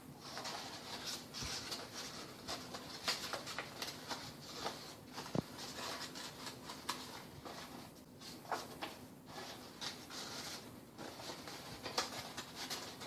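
Stiff paper pieces rustling, scraping and crinkling as they are bent and slotted into one another to build an IQ lamp, with scattered small clicks and one sharper click about five seconds in.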